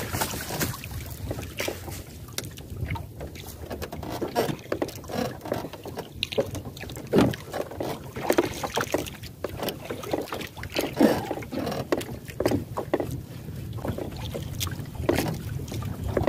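Fishing gill net hauled by hand out of the lake into a small boat: irregular splashes and drips of water as the wet net comes aboard, over a steady low rumble of wind and water against the hull.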